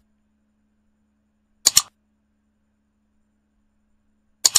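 Computer mouse click sound effect from a like-and-subscribe button animation: a sharp double click about a second and a half in and another near the end.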